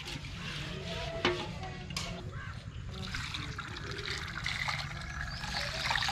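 Water draining off boiled phagoosi flower buds, poured from a tilted metal pan into a steel bowl and splashing onto the ground, with a couple of sharp metal knocks. About halfway through, the drained buds are tipped from a steel pot into a bowl.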